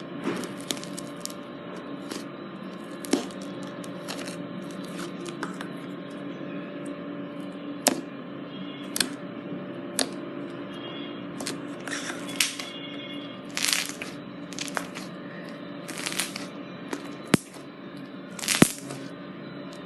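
Slime being squeezed and stretched by hand, giving irregular sharp clicks and pops, some louder than others, over a steady low hum.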